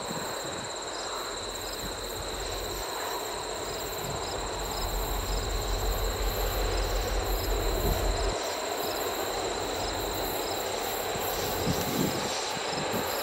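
Train rolling past on the rails, wheels running over the track, with a deeper rumble for a few seconds in the middle.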